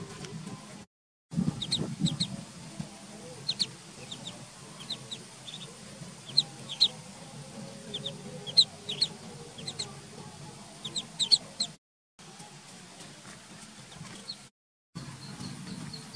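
Ducklings peeping: many short, high-pitched peeps in scattered runs over a steady low background noise, with the sound dropping out briefly twice.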